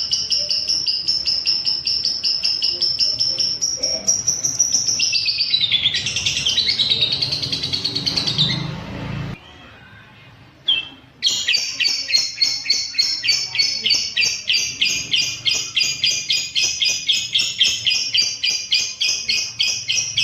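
A lovebird's long, fast, high-pitched chattering trill ('ngekek'), an even run of rapid repeated notes. It breaks off about nine seconds in, gives one short chirp, then starts again about two seconds later.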